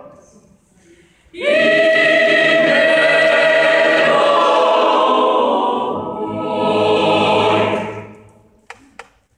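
Mixed choir singing a cappella. After a short rest the voices come in together about a second in, hold the phrase, and let it die away near the end, followed by two faint clicks.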